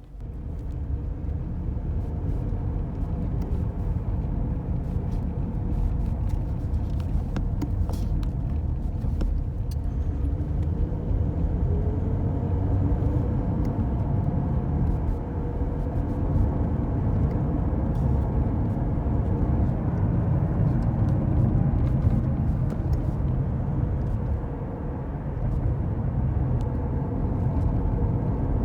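Car driving with a failed wheel hub bearing: a steady, low rumbling drone from the wheel, with a droning wow-wow undertone, the sign of a worn-out hub bearing. The noise comes up sharply just as it starts.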